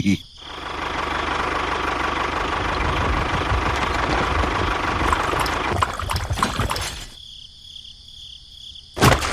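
An engine running steadily for about seven seconds, then cutting off abruptly to a much quieter background. A short loud burst of sound comes near the end.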